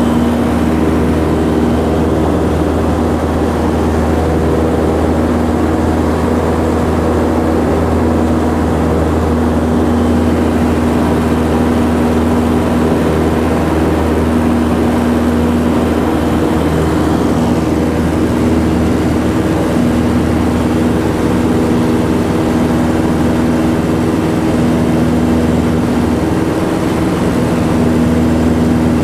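Steady drone of a Piper light airplane's piston engine and propeller, heard from inside the cabin in flight.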